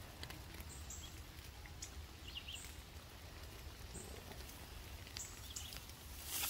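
Faint high bird chirps, a few short notes in a cluster about every three seconds, over a low steady rumble of outdoor background noise.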